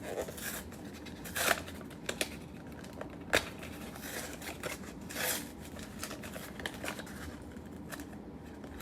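A hanger box of trading cards being opened and handled: intermittent rustling, crinkling and tearing of the packaging, with a few sharp clicks and snaps.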